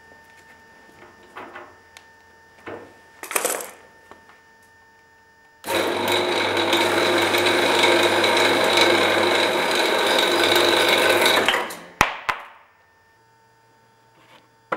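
Clarke bandsaw starting up about six seconds in and running for about six seconds while cutting through a 40 mm acrylic bar, then a sharp click and the blade winding down. A few light knocks come before it starts.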